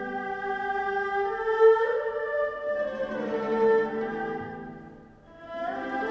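Chinese traditional orchestra playing a slow, sustained melody led by bowed huqin strings (erhu family). The sound thins to a soft low point about five seconds in, then swells back.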